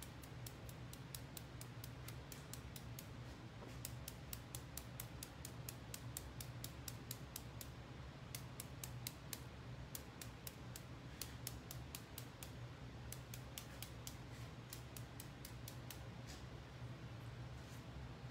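Quick, light ticks, several a second with short pauses, of a marbling brush being tapped to spatter paint onto the tank's size in a stone pattern, over a steady low hum.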